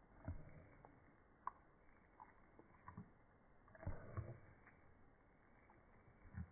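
Faint wet clicks and soft thumps of a pug licking and smacking its lips, a few scattered sounds with a small cluster about four seconds in.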